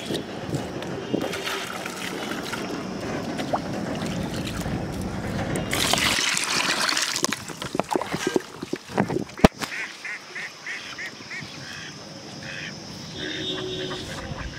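Pond water sloshing and trickling as it is scooped and poured with a steel plate, with a brief louder splash about six seconds in. Then a few knocks and clicks of handling, and a bird calling in short repeated notes in the last few seconds.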